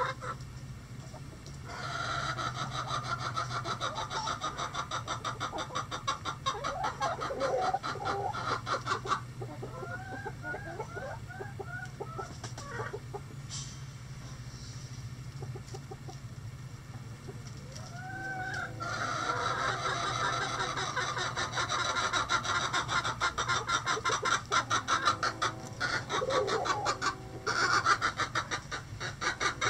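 Domestic hens clucking and calling. There is a run of about six short rising-and-falling calls near the middle and a single call of the same shape a few seconds later. Two long stretches of a fast rattling trill come at the start and through the second half, and a steady low hum runs underneath.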